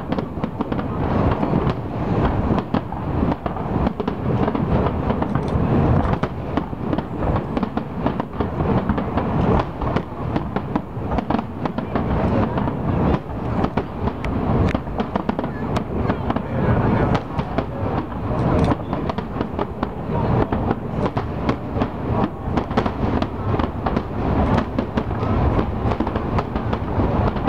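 Aerial firework shells bursting in a dense, continuous barrage of bangs with no pauses.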